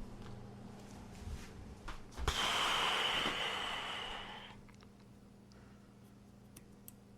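A hissing blast of air, about two seconds long with a thin steady whistle in it, amid small clicks of knife parts being handled.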